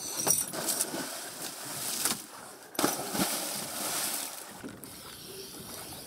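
Scuba divers splashing into the sea off the side of a boat, with a loud splash about three seconds in, then water sloshing around them at the surface.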